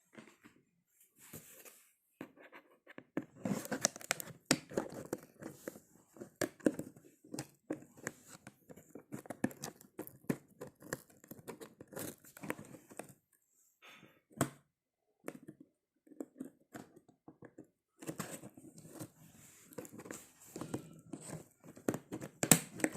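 Packaging being unwrapped by hand: irregular tearing and crinkling with many small clicks and taps, in spells broken by short pauses, and a sharper click near the end.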